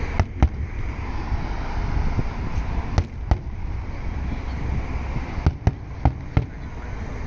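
Aerial fireworks bursting with sharp bangs: two close together near the start, two more about three seconds in, and a quick run of four near the end, over steady background noise.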